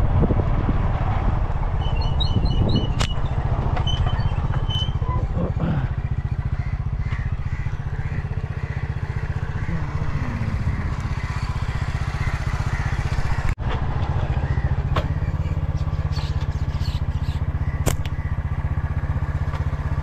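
Small motorcycle engine running steadily at riding speed, heard from on the bike, with a steady low drone.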